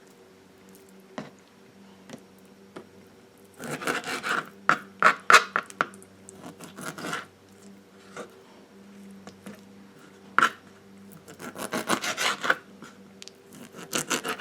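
Knife cutting and scraping raw chicken gizzards on a cutting board: two bouts of quick rasping strokes, one about four seconds in and one about eleven seconds in, with a few single knocks between them.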